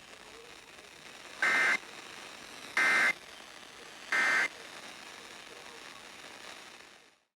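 Emergency Alert System end-of-message signal: three short bursts of screeching two-tone digital data, about a second and a bit apart, over faint radio hiss, marking the end of the alert broadcast.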